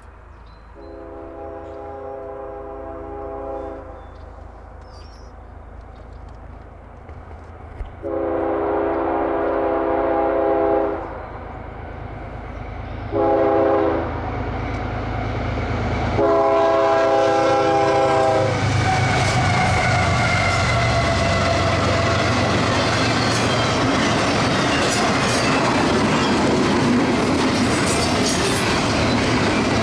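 Freight locomotive's multi-chime horn sounding the grade-crossing signal: two long blasts, a short one and a final long one as the train approaches. After the last blast the locomotive passes close by, its diesel engine rumbling. Then come the double-stack intermodal cars, with steady wheel clatter and rail noise and a high wheel whine.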